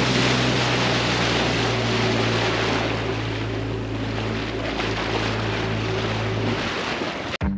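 Small outboard motor on an inflatable dinghy running steadily under way, a low even engine hum under a loud rushing hiss. It cuts off abruptly near the end.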